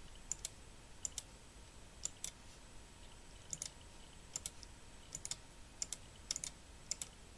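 Computer mouse button clicking: about nine pairs of short, sharp press-and-release clicks at irregular intervals, faint over a low steady background hiss.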